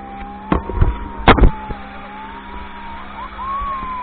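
Speed boat's motor running: a steady low hum with a whine above it that wavers slowly up and down in pitch. Several sharp knocks break in, the loudest about a second and a half in.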